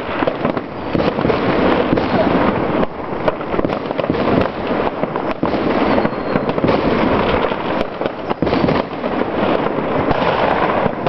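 Many aerial fireworks bursting at once: a dense, unbroken barrage of overlapping bangs and crackles.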